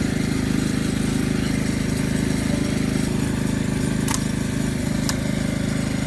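An engine idling steadily, with two short sharp clicks about four and five seconds in.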